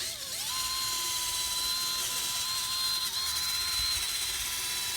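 Power drill with a sanding disc wet-sanding a plastic headlight lens: the motor speeds up about half a second in, then runs at a steady high whine.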